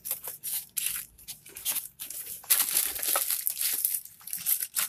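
Clear plastic bags wrapped around small speakers crinkling and rustling as they are handled and set down, in irregular bursts that are loudest a little after the middle.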